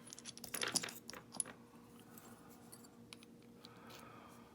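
Small metal lock pins and springs clinking and rattling onto a hard surface as a euro cylinder is taken apart, a quick flurry of clicks in the first second or so, then a few faint ticks.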